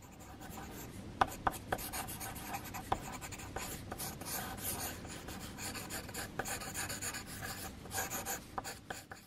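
Pencil sketching on paper: the lead scratches in many short, quick strokes, with a few sharp ticks of the tip against the sheet.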